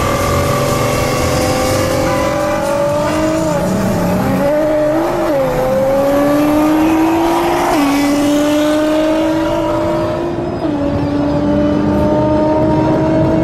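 Bugatti Veyron's quad-turbocharged W16 engine heard from inside the cabin under hard acceleration, its pitch climbing steadily and dropping abruptly at upshifts about eight and eleven seconds in.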